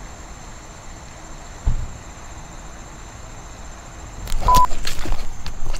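Faint steady high insect drone, then about four seconds in a louder run of clicks and knocks from a spinning rod and reel handled close to the microphone, with one short beep among them.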